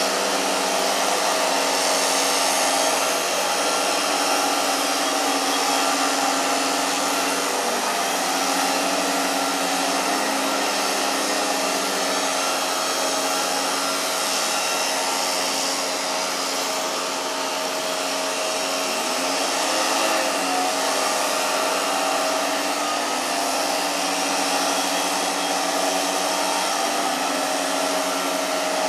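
A loud, steady machine noise with a low hum that shifts slightly in pitch a few times, like a motor running on and on.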